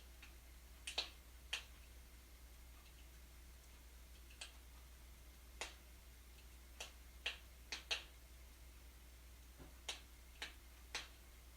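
Wood fire burning in a fireplace, giving off sharp, irregular crackles and pops, about a dozen of them, over a steady low hum.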